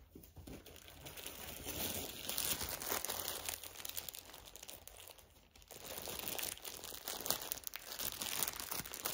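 Plastic packaging of cross-stitch fabric crinkling and rustling as it is handled and unwrapped, in two stretches with a short pause about five and a half seconds in.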